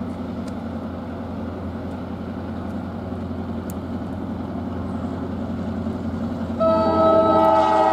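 Norfolk Southern GP38-2 diesel locomotive approaching, its EMD two-stroke diesel engine a low, steady rumble that grows slowly louder. About two-thirds of the way in, its multi-note air horn starts sounding a loud chord for the grade crossing and holds on.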